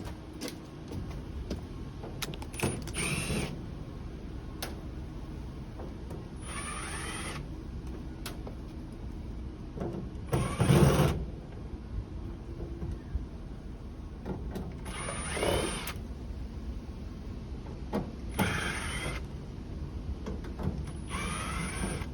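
Power drill-driver running in six short bursts a few seconds apart, each spinning up with a rising whine.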